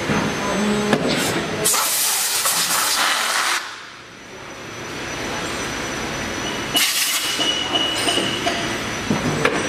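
Liquid silicone rubber injection molding machine running, with a loud hiss lasting about two seconds, a brief lull, and a second short hiss about seven seconds in.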